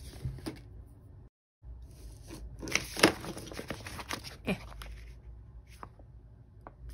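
Paper being handled: a sticker sheet and planner pages crinkling and rustling, with a dense run of crackly rustles in the middle and a few light ticks near the end. The sound cuts out briefly about a second in.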